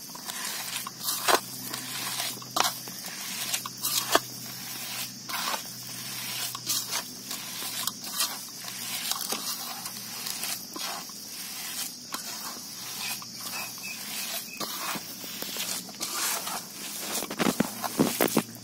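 Hand kneading crumbly chhena, milk curd drained after curdling with lemon juice, pressed and rubbed with the palm against a metal plate: soft squishing and scraping with many irregular little taps and clicks, over a faint steady low hum.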